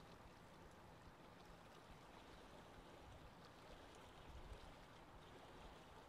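Faint lake-shore ambience: a steady low rush of wind with light lapping of water.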